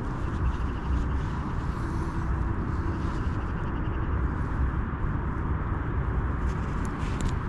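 Steady low outdoor rumble with no clear single source, with a few faint small clicks near the end.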